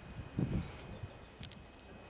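Wind buffeting the microphone in one short gust about half a second in, then a faint steady outdoor background with a few light clicks.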